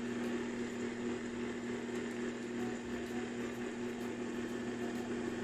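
Commercial grinder blender's motor running steadily at a low setting on its adjustable speed dial, a constant even hum as it blends a shake.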